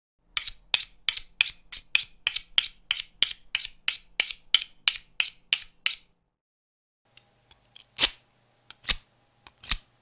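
A knife blade being sharpened in quick, even strokes, about three scrapes a second. After a short pause near the middle, it slows to single, louder strokes about a second apart, with small metallic clicks between them.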